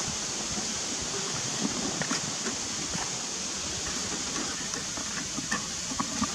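Beef burger patty frying without oil in a small nonstick camping pan on a portable butane stove: a steady sizzling hiss with scattered small crackles and the scrape of a wooden spatula. The meat is sticking to the dry pan.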